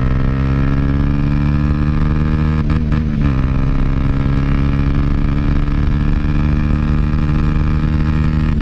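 Dafra Next 250's single-cylinder four-stroke engine running at a steady speed under way through a Jeskap GP Carbon aftermarket exhaust. Its pitch dips briefly and comes back about three seconds in.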